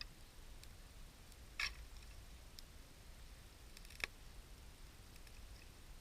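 Wood bonfire crackling faintly, with scattered small ticks and two sharper pops, about a second and a half in and about four seconds in, over a low rumble.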